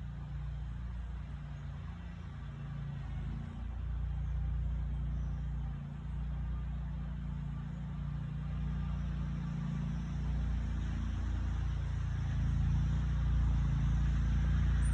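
Lawnmower engine running steadily as a low rumble, growing louder over the last few seconds.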